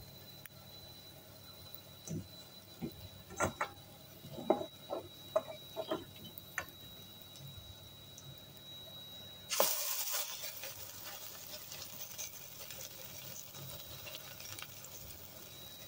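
Carrot patties shallow-frying in a little oil in a nonstick pan. Several light knocks and taps come first as the patties are handled. About ten seconds in, a sudden sizzle starts as a patty goes back into the hot oil, then fades away over a few seconds.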